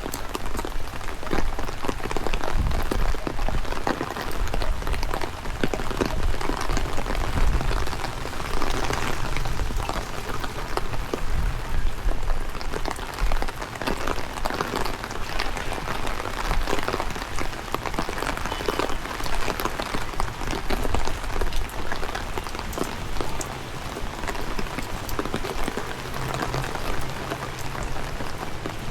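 Steady heavy rain, with many close, sharp drop impacts over a dense hiss, and a low rumble of strong wind on the microphone.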